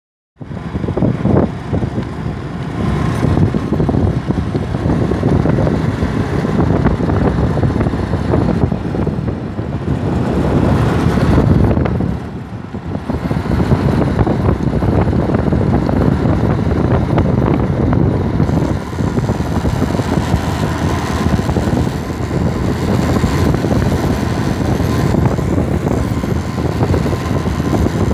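Honda motorcycle under way on a road: the engine runs steadily beneath the rush of wind over the microphone, easing off briefly about twelve seconds in.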